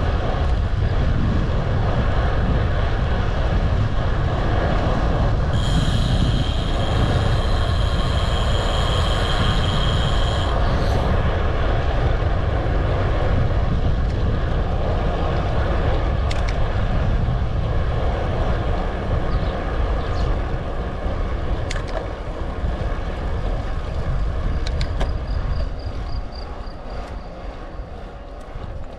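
Steady wind buffeting on the microphone and road rumble during a ride. A high, steady squeal starts about six seconds in and lasts about five seconds. A few sharp ticks come later, and the noise eases off near the end.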